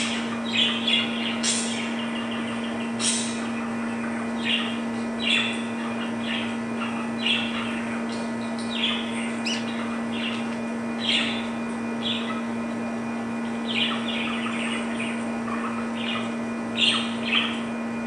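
Budgerigars chirping: short, sharp chirps and squawky calls every second or so, with a few closer pairs, over a steady low hum.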